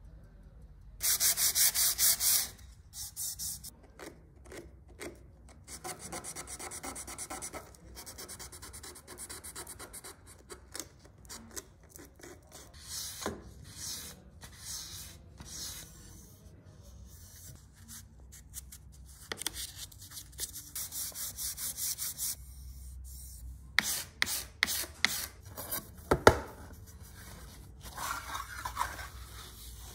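Hand sanding: abrasive paper rubbed over wood in runs of quick back-and-forth strokes, the loudest run near the start, with shorter scrapes between. A single sharp knock comes near the end.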